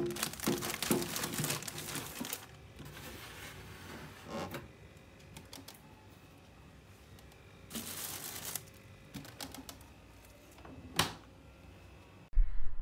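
Plastic grocery bags crinkling and rustling as produce is handled and put into a refrigerator, densest in the first couple of seconds, with another short burst later. Near the end the fridge door shuts with one sharp knock.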